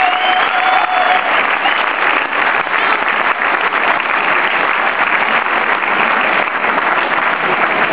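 Large crowd applauding: dense, steady clapping, with a held tone over it that ends about a second in.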